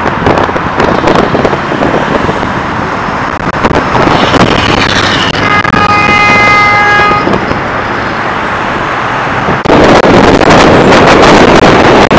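Road traffic going by, with a vehicle horn sounding one held honk of about two seconds midway. Near the end the sound cuts suddenly to loud wind buffeting the microphone.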